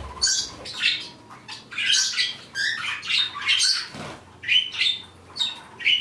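Small pet parrots chirping and squawking: a quick run of short, high calls, about two a second.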